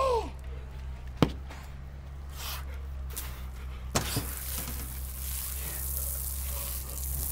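Outdoor shower spraying water onto a man's head, a steady hiss that starts about four seconds in. Before it, a short groan right at the start and a sharp click about a second in.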